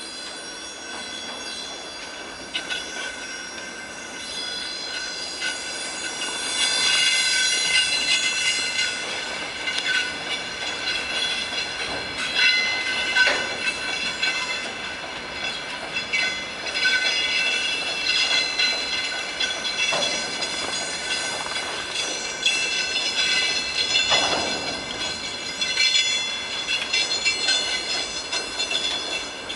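Freight wagons' wheels squealing on the rails as a shunted train rolls slowly past, a shifting chorus of high tones that grows louder about six seconds in. Several clanks and knocks from wheels and couplings come through in the second half.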